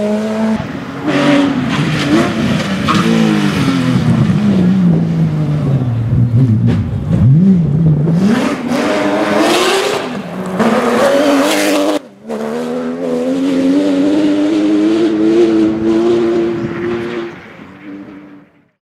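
Rally car engines at high revs: the engine pitch falls steeply through the first half as a car goes by and lifts off, then climbs again under hard acceleration. After a short break about twelve seconds in, another car revs up steadily, fading out near the end.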